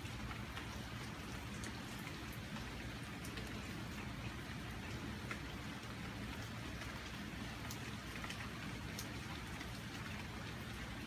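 Steady rain falling on tree leaves, with scattered sharper ticks of single drops landing close by.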